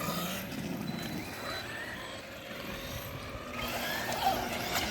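Electric RC car motor whining, its pitch rising and falling as the throttle is worked.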